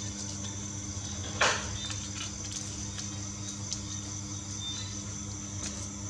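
Origami paper crinkling and rustling as it is folded and tucked by hand, with one sharp crackle about a second and a half in and a few softer paper clicks after. A steady low hum with a thin high whine runs underneath.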